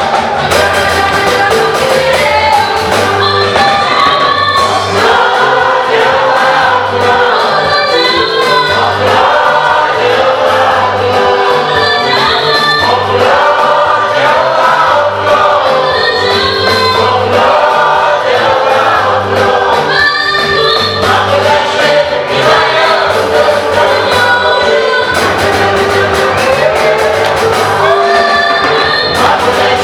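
A choir singing an African gospel song with many voices in harmony, over accompaniment with a steady, repeating bass line.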